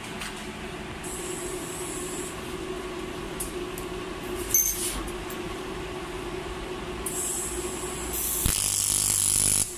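TG301P pulse TIG welder humming steadily. About seven seconds in a high hiss starts, and for the last second or so a louder buzzing hiss of the welding arc cuts off suddenly. The current is set high enough that the welder then asks to turn it down.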